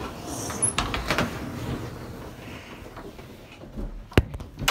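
A closet door being moved open, with rustling and scraping handling noise, a few soft knocks about a second in, and two sharp clicks near the end.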